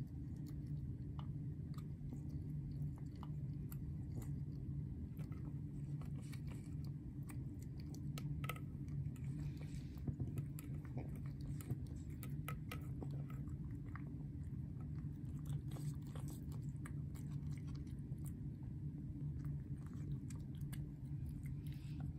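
Cat eating wet food loudly from a metal bowl: a continuous run of small wet chewing clicks and smacks, over a steady low hum.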